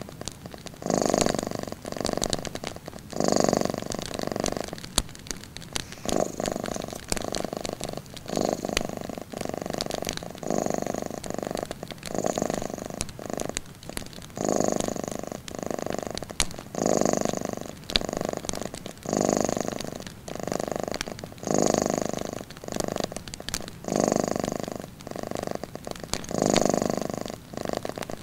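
Domestic cat purring close up, a steady rhythm of rumbling pulses, about one per second as it breathes in and out. Scattered faint crackles of a wood fire run beneath it.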